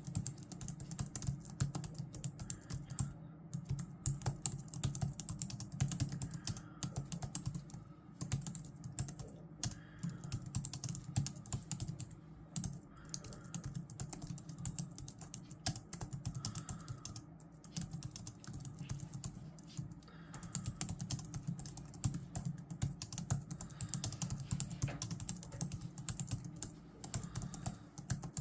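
Continuous typing on a computer keyboard: fast, irregular keystroke clicks, several a second, with no pauses of note.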